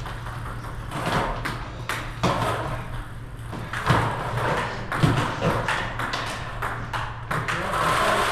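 Table tennis rally: a plastic ball struck by rackets and bouncing on the table, heard as a quick, uneven run of sharp clicks, in a large room.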